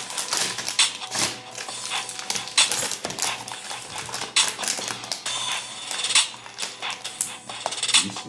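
Packaging being handled and opened: irregular clicks, taps and crinkles of plastic and cardboard, over background music.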